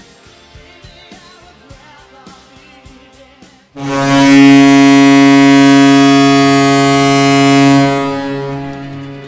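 Faint music with a beat, then about four seconds in an ice hockey arena goal horn sounds one long, low, steady blast for about four seconds before fading out.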